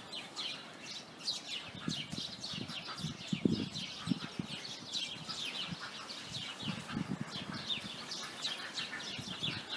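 A flock of house sparrows chirping non-stop, many short downward chirps overlapping one another, with a few soft low thumps in between.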